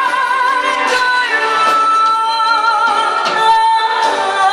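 A woman singing a Korean ballad over instrumental backing, drawing out long notes with a wide vibrato.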